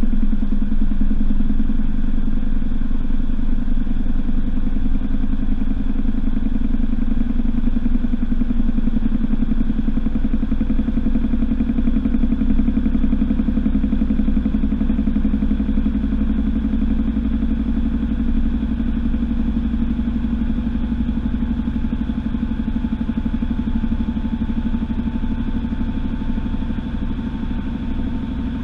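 Washing machine spinning its drum: a steady, loud motor-and-drum hum that eases slightly in level, with a faint whine that comes in about halfway and rises a little.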